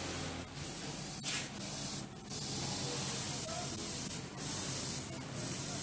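Airbrush spraying paint with a steady hiss that stops briefly about five times between passes, over a faint low hum.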